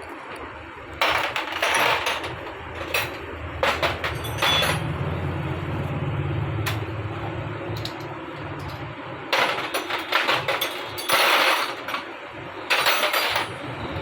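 Metal tools and motorcycle engine parts clinking, clattering and scraping during hands-on disassembly, in irregular sharp clanks. A low hum runs under them for a few seconds in the middle.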